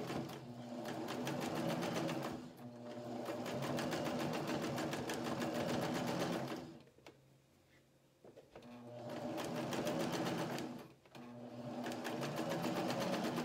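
Electric domestic sewing machine running in spells as it top-stitches fabric, its needle stroking rapidly. It dips briefly about two and a half seconds in, stops for about two seconds in the middle, and starts again, with another brief let-up a little later.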